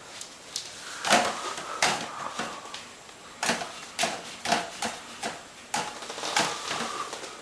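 A cat boxing, swatting with its paws: about a dozen quick, irregular soft slaps and taps.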